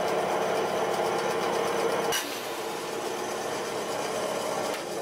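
Bandsaw running and ripping a thin dark hardwood strip against the fence, a steady machine hum. About two seconds in there is a click and the sound drops a little, as the cut ends and the saw runs on unloaded.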